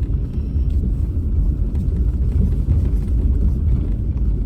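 Low, steady rumble inside a car's cabin as it drives slowly over a rough dirt and gravel road.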